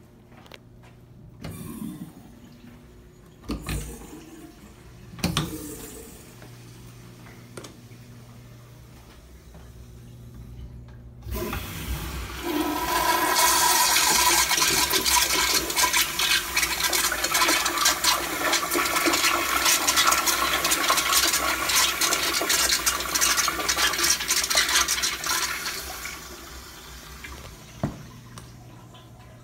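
A few knocks from a stall door and footsteps, then about eleven seconds in a 1982 Kohler Kingston toilet flushes. It gives a sudden loud rush of water that holds for about thirteen seconds and then dies away. A steady low hum sits underneath.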